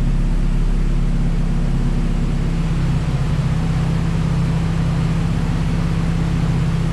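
Honda B16B inline-four engine idling steadily, a low, even drone with no revving.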